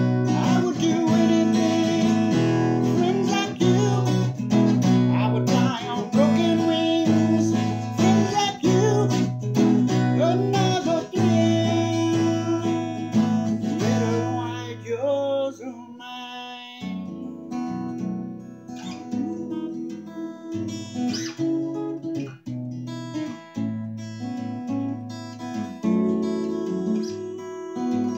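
A man singing along to his own steel-string acoustic guitar; about halfway through the voice stops and the guitar plays on alone.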